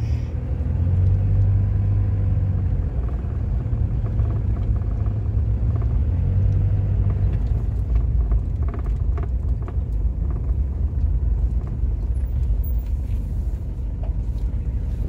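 A car driving: steady low engine and road rumble, with a few faint knocks.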